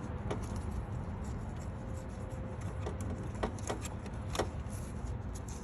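A few faint clicks and taps from a plastic coolant-hose quick-connect fitting being worked loose by hand, over a steady low rumble.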